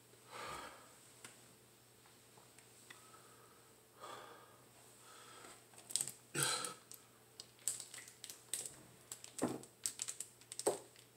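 A couple of soft rustles, then from about six seconds in, a large plastic water jug crackling and clicking as it is picked up and drunk from.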